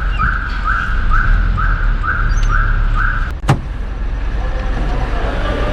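A vehicle's electronic warning beeper sounding in short even beeps, about two a second, over a low engine and road rumble; the beeping stops about three seconds in, followed by a single sharp thud.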